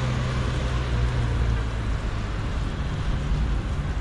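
Wind rushing over the microphone of a moving bike, mixed with street traffic. A low engine hum from a nearby vehicle fades out about halfway through.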